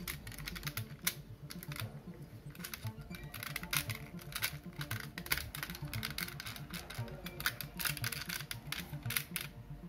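Hard plastic parts of a Transformers United Lugnut toy figure clicking, tapping and rattling as hands fold and snap its panels into place, many small irregular clicks throughout, over faint background music.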